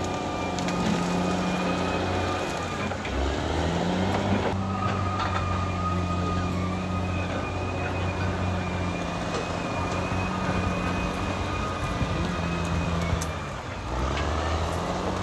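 Caterpillar D6R XL bulldozer's diesel engine running under working load, with a steady high whine above it. The engine note drops and climbs back twice, about three seconds in and near the end.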